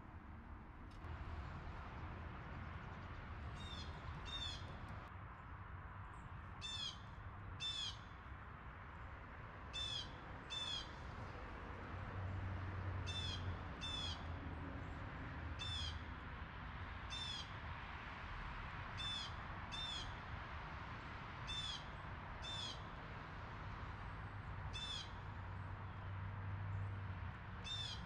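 Blue jay calling: short, harsh calls, mostly in pairs, repeated every two to three seconds over a steady low hum.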